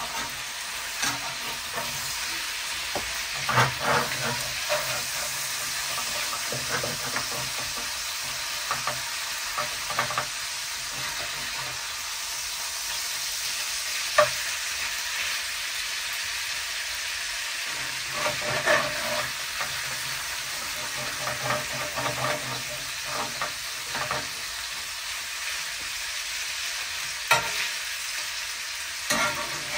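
Bacon and mini sausages sizzling in a pan with a steady hiss, broken by scattered scrapes and clinks of a utensil as they are turned over. The food is about halfway cooked.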